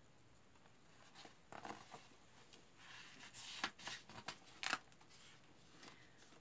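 Faint rustling and light clicks of a hardback book being handled and turned around in the hands, scattered between about one and five seconds in.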